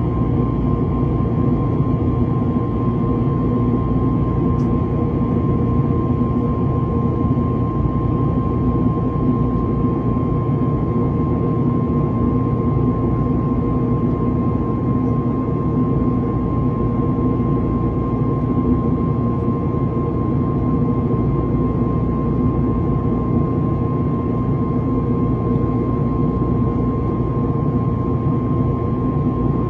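Airbus A321neo's CFM LEAP-1A engines and airflow heard inside the cabin in flight: a steady loud drone with a constant whine near 1 kHz that does not change.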